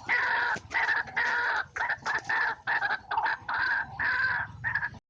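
White-breasted waterhen (ruak-ruak) calling, a harsh call repeated about twice a second, cutting off suddenly near the end.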